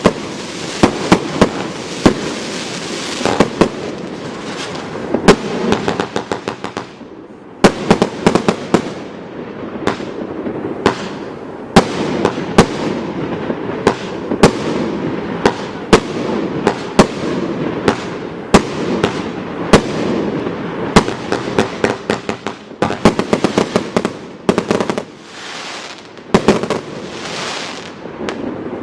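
F2 compound firework cake firing: a continuous crackling hiss of burning effects, punctuated by many sharp bangs. There is a brief lull about seven seconds in, and the firing thins out near the end.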